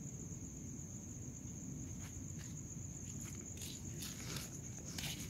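Crickets trilling steadily on one high note over a low rumble. From about two seconds in there are several light clicks or footsteps.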